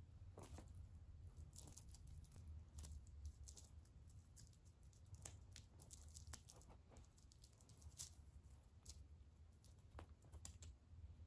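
Faint, irregular rustles and soft ticks of a tabby kitten scrabbling on carpet and batting at a ribbon wand toy, over a low steady hum.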